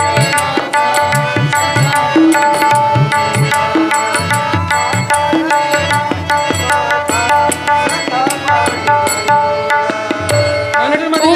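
Instrumental interlude of a Marathi abhang: tabla playing a steady rhythm under a held melody, with the harmonium carrying the tune.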